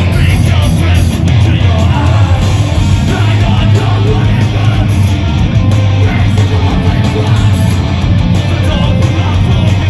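Live heavy band playing loud through a festival PA: distorted guitars and heavy bass with a voice yelling over them.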